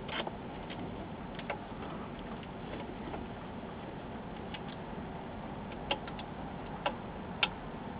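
Scattered light clicks and taps from handling an LCD monitor's metal chassis and cable connector, a few sharp ones in the second half, over a steady background hiss.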